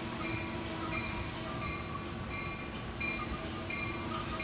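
A railroad warning bell dinging over and over, about one and a half strikes a second, over the steady rumble of a train.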